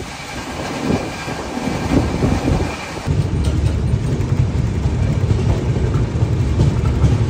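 Passenger train running at speed, heard from on board at an open window: a steady rumble and rattle of the carriage on the track, with a few knocks in the first two seconds, growing louder about three seconds in.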